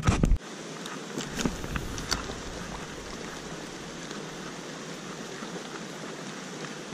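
Steady hiss of running stream water, with a brief knock and rustle at the start and a few light clicks from handling the rod and reel.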